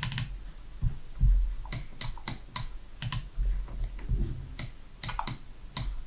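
Computer mouse and keyboard clicking irregularly, about a dozen sharp clicks, with a few dull low thumps in between.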